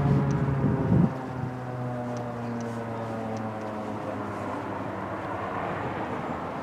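Federal Signal 2001-SRN electromechanical rotating warning siren winding down after its alert tone, its pitch falling slowly. A loud low rumble underneath cuts off about a second in.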